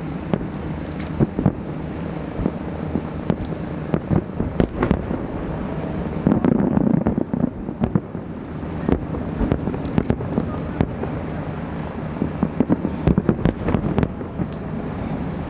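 Fireworks display: shells bursting in quick, irregular succession, a string of sharp bangs over a continuous low rumble, with a dense flurry of cracks near the end.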